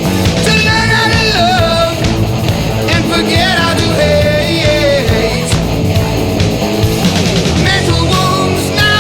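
Rock song with a singer over a loud, continuous band backing.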